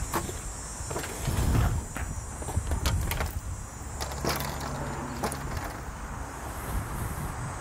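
Fishing rods in a portable rod rack being handled and set down on a pontoon boat, making scattered sharp knocks and light clatter over a low rumble.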